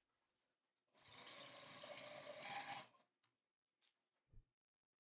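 Juki TL-2010 straight-stitch sewing machine stitching through a quilt in one burst of about two seconds, starting about a second in, played back sped up. A faint click and a short low thump follow near the end.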